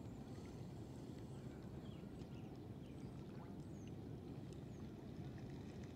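Faint, steady low rumble of outdoor background noise, with a few faint high chirps and ticks scattered through it.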